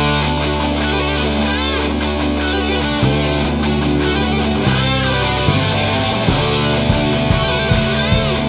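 Heavy rock band music with distorted electric guitar, starting abruptly; drum hits come in at a steady beat about halfway through.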